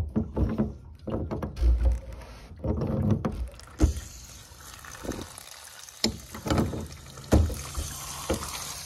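PVC drain cap on a rain-harvest first-flush diverter being worked loose with slip-joint pliers and then unscrewed by hand: scraping and handling noise with a few sharp clicks. Near the end, water from the first-flush chamber starts spraying out around the loosened cap with a steady hiss.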